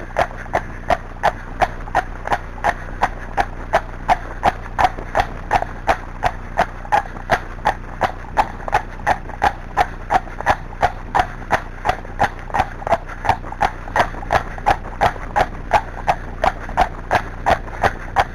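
Friesian horse trotting on a wet paved track: its hooves strike the hard surface in a steady, even rhythm of about two and a half beats a second.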